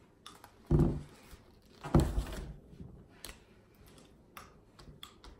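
Two loud short bursts of sound about a second apart, then light ticks and clicks from a paper plate and marker being handled.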